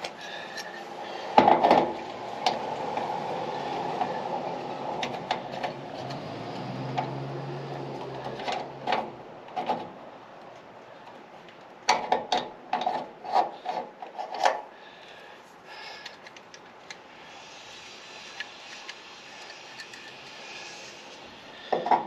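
Hand tool and metal parts being worked by hand: scattered clicks, clinks and knocks with some rubbing and scraping, in clusters about a second in, around the middle and again a few seconds later.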